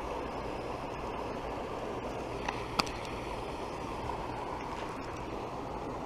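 Steady rush of a small waterfall of water spilling into the lake, with two faint clicks about two and a half seconds in.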